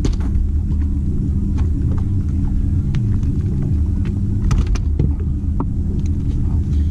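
Boat motor running steadily: a low rumble with a constant hum, with a few light knocks and clicks in the middle.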